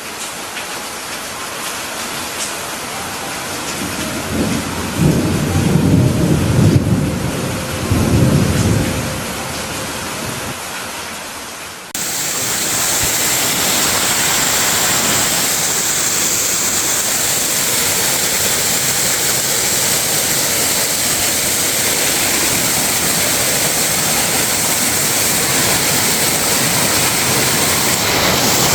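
Waterfall rushing: a steady hiss of falling water with a few heavy low rumbles about five to nine seconds in. About twelve seconds in, the sound cuts abruptly to a louder, brighter, unbroken roar of water.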